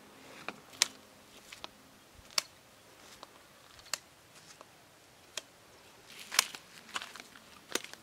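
Irregular sharp taps and clicks of a hiker walking on bare rock: a trekking pole's tip striking stone and flip-flop footsteps, roughly one or two a second, with the loudest a little past six seconds in.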